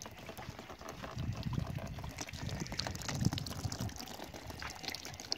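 Sugar beet juice trickling in a thin stream from a cloth-wrapped press into a plastic basin of froth, with many small splashes. A low rumble runs under it from about a second in until about four seconds in.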